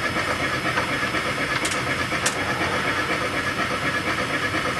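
Model steam locomotive running in place on roller stands: a steady running noise from the motor and turning wheels, with a steam hiss. Two sharp clicks come about a second and a half and two and a quarter seconds in.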